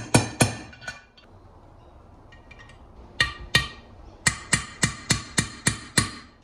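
Steel ball-peen hammer striking a socket to drive small bearings (shift drum and power valve bearings) squarely into the aluminium crankcase of a Suzuki RMX250 two-stroke engine. Sharp ringing metallic taps: a few at the start, two more about three seconds in, then a quick run of about seven taps near the end.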